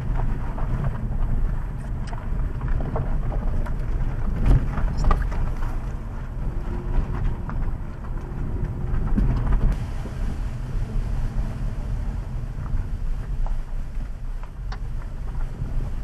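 Car driving on a rough road: a steady low rumble of road and wind noise, with scattered light clicks and knocks.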